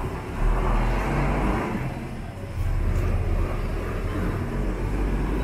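Road traffic dominated by a city bus pulling away down the street, its engine a steady low sound.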